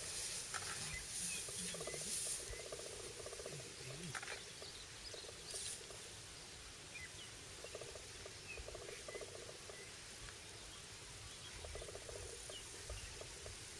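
Faint bush ambience: repeated bouts of a pulsing, buzzing animal call, with a few faint high chirps of birds scattered through.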